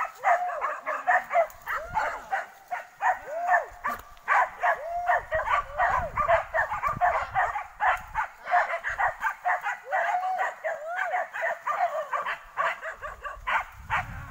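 A pack of hunting dogs barking and yelping at a wild boar they have brought to bay, several dogs at once in a rapid, unbroken run of short, overlapping barks.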